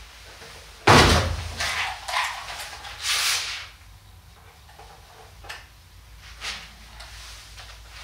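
A heavy thump about a second in, then smaller knocks and a short scraping rustle, then a couple of light knocks: a Chao Yang Sand Storm fat-bike tyre being handled and put on a scale to be weighed.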